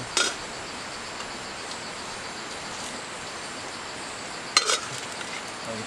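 Steady background hiss of a night-time forest camp with a faint high insect-like tone. It is broken by two short clicks, one just after the start and a louder double click about four and a half seconds in.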